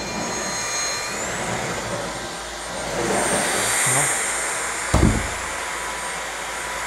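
LG A9TS cordless stick vacuum running, a rushing airflow with a high motor whine that rises in pitch about a second in as the suction setting is raised. A single knock about five seconds in.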